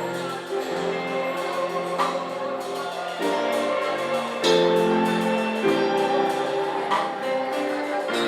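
Church music: sustained chords over a steady percussion beat.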